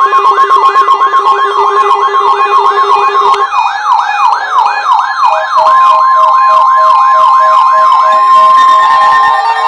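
Electronic siren warbling rapidly, about four sweeps a second, over evenly pulsed steady beeps. About halfway through, a long steady tone and a different pulsing beep join in, and the warble stops near the end as rising glides come in.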